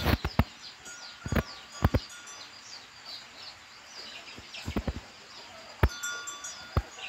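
Cattle shifting about in a wooden-railed stall, giving about ten sharp knocks and clanks, some in quick pairs, a few with a short metallic ring. Birds chirp steadily in the background.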